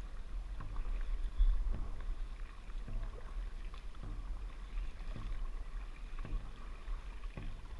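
Dragon boat crew paddling at race pace, with strokes landing in a steady rhythm a little under twice a second, over a low wind rumble on the microphone.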